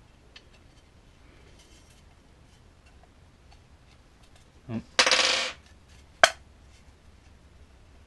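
Small metal fin tab and screw clattering against a hard plastic fin box while being fitted: faint handling clicks, then a brief sharp rattle about five seconds in and a single sharp click just after it.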